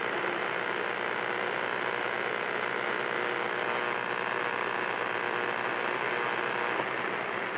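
CB radio receiver with the squelch open, giving steady static hiss from its speaker with a few faint steady tones mixed in. It is the sound of a channel with no station coming through strongly: the signal meter needle sits near zero.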